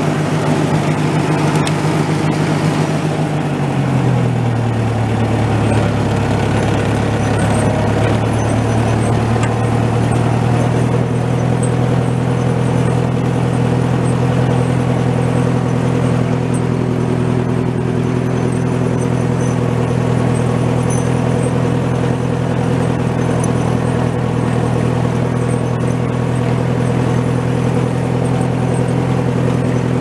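Massey Ferguson tractor engine running steadily as the tractor drives in first gear high range; the engine's pitch drops about four seconds in, then holds steady.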